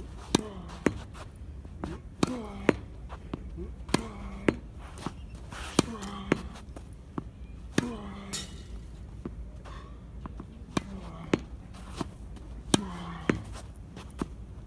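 A tennis ball being rallied against a practice wall: a steady run of sharp pops as the racket strikes the ball and the ball hits the wall about half a second later. Many strokes come with a short grunt that falls in pitch.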